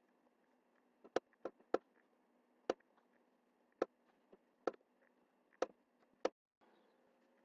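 Computer mouse button clicking, about eight sharp single clicks at uneven intervals over a faint steady hum.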